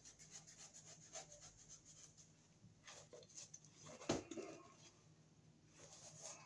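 A knife scratching through a soft drop ceiling tile in faint short strokes. A single sharp snap about four seconds in comes as a piece of the tile breaks off.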